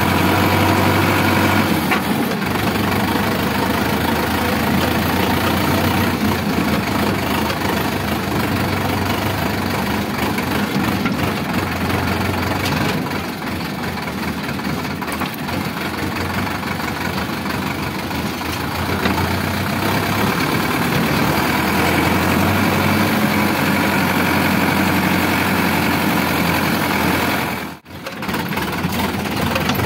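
Sonalika DI 750 tractor's diesel engine running steadily while the tractor is driven, heard from the driver's seat. The sound drops out sharply and briefly near the end.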